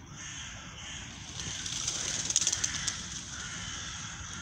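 Faint calls of gulls and crows around a lake over a steady hiss of outdoor background noise. About a second and a half in, the sound swells for a second or so with a rapid patter of sharp clicks.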